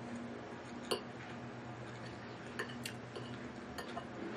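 A metal fork clinking and scraping against a dinner plate a few times, the sharpest clink about a second in, over a faint steady low hum.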